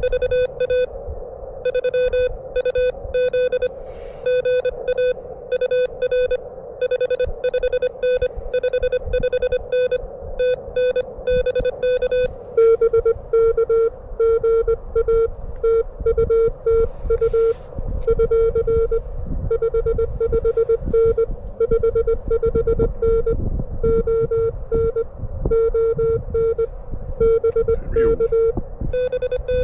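Morse code (CW) at about 25 words per minute from a ham radio transceiver: a steady beep keyed rapidly on and off in dots and dashes. About twelve seconds in, a second signal at a slightly lower pitch takes over. Wind rumbles on the microphone underneath, heaviest in the second half.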